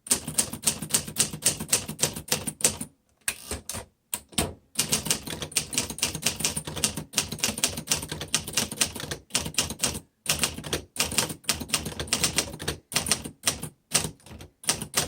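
1951 Remington Quiet Riter manual typewriter being typed on at a steady pace, rapid key strikes in quick runs broken by a few short pauses.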